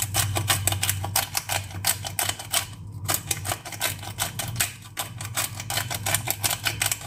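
Hand-twisted pepper grinder cracking peppercorns: a fast run of dry ratcheting clicks, broken by short pauses about three seconds in and again near five seconds.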